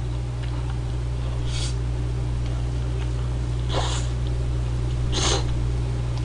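A person slurping Buldak spicy stir-fried ramen noodles off chopsticks: one soft slurp, then two louder ones about a second and a half apart near the end. A steady low hum runs underneath.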